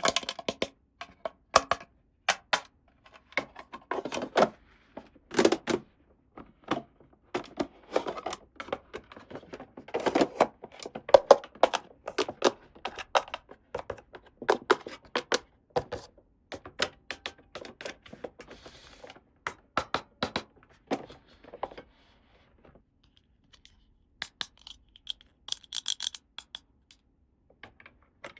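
Small toy playset pieces being handled and set down, giving irregular clicks, taps and light knocks, with a short rustle near the end.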